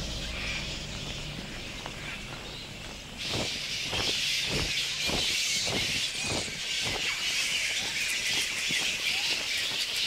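Little red flying foxes flying past, their wings whooshing in a steady beat of about two flaps a second for a few seconds, over a constant high hiss of outdoor ambience that swells about three seconds in.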